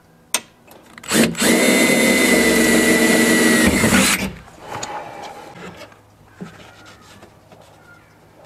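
Cordless drill running at a steady speed for about three seconds, starting about a second in, as a 7/64-inch bit bores a pilot hole through the door's sheet metal for a speaker screw. Light clicks and handling noises follow.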